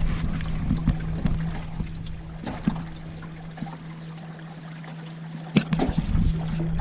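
Small boat under way: a steady hum from its motor, with wind buffeting the microphone and a few sharp knocks near the end.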